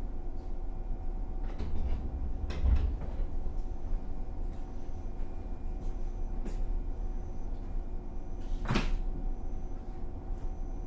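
Inside a JR 115-series electric multiple unit car standing at a station: the car's onboard equipment hums steadily. A couple of clattering knocks come about two seconds in, and a sharp knock comes near the end.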